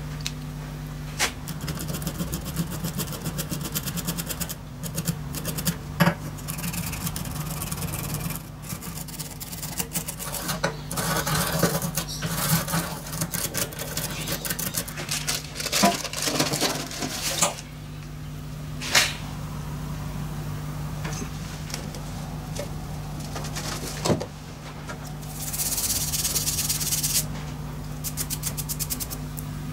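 Toothbrush scrubbing small metal engine parts with scouring cleanser at a stainless-steel sink: a rasping bristle scrub broken by sharp clicks as the parts knock and shift, over a steady low hum. A short hiss comes near the end.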